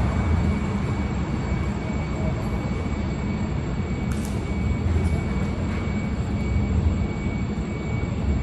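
Steady low rumbling noise, uneven from moment to moment, with no clear events in it.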